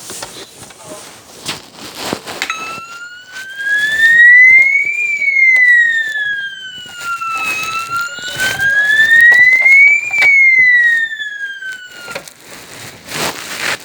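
Fire alarm sounder on its second tone, a slow wail that sweeps up in pitch for about two and a half seconds and back down, twice over. It starts about two and a half seconds in and cuts off near twelve seconds, with scattered clicks and knocks around it.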